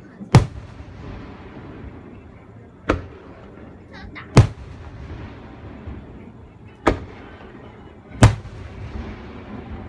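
Aerial fireworks shells bursting: five sharp booms, a second and a half to two and a half seconds apart, each trailing off in a rumble.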